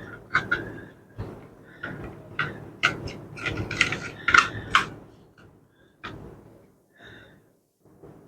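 Small clicks, taps and clatter of metal and plastic laptop parts being handled: an SSD being fitted into a laptop's metal hard-drive caddy. The clicks come in a quick run for about five seconds, then thin out to a few taps.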